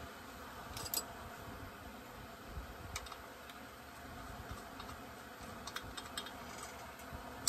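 Scattered small metallic clicks and clinks of a socket wrench and chainsaw parts being handled during reassembly, in a few brief clusters over a faint steady hum.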